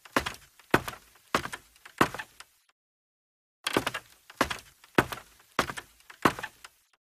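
Footsteps of shoes walking down open wooden stairs, each step a clear knock about two-thirds of a second apart. The steps break off about two and a half seconds in and start again about a second later for five more.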